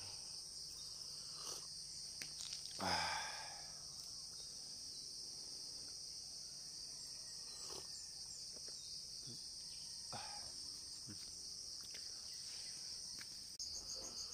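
A steady, high-pitched insect chorus trilling without a break. There is a short louder sound about three seconds in, and a faster pulsing trill joins near the end.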